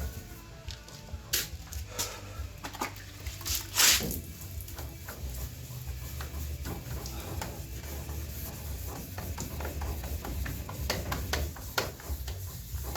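Abrasive rubbing and scraping on a truck's wet clear coat as it is cut flat: irregular strokes over a steady low hum, with one short sharp hiss about four seconds in.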